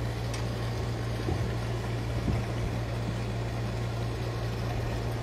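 Steady low electrical hum from an energized pump control panel and its 220-to-380 V step-up transformer, with the pump running.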